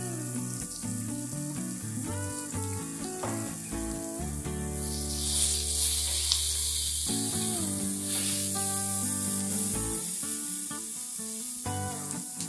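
Diced linguiça sausage and onion sizzling in olive oil in a frying pan as they brown, stirred with a spatula. The sizzle is loudest for a few seconds in the middle, and background music plays over it.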